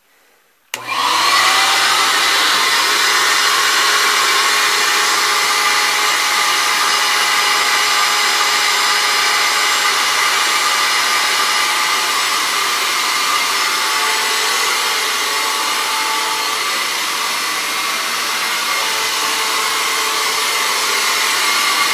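A small Shop-Vac Micro vacuum is switched on; its motor starts about a second in and runs with a loud, steady, high whine, drawing a vacuum under a plastic tarp.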